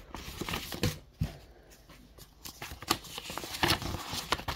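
Paper mailing envelope being pulled open and handled: paper rustling with a few sharp crackles.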